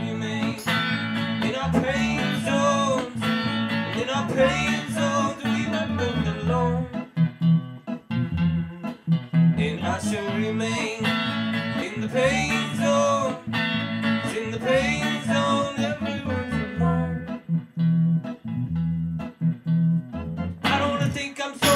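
A small band playing a song live in a room: guitar over steady, sustained low notes, with a singing voice over them that drops out for a few seconds near the end while the instruments carry on.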